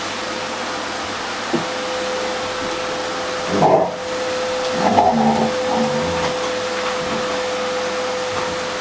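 Household vacuum cleaner running steadily with a constant motor whine, while a Labrador barks at it a few times, about three and a half seconds in and again around five seconds.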